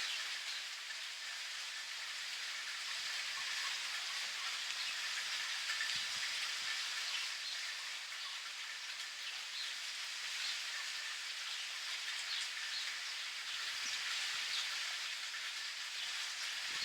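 Steady rain falling, a constant hiss with scattered drops ticking on a surface.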